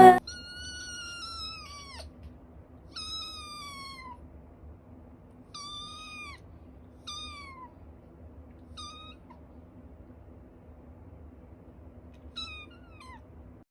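A cat meowing six times with short pauses between, each high-pitched call sliding down in pitch. The later calls are shorter. A faint steady hum sits underneath.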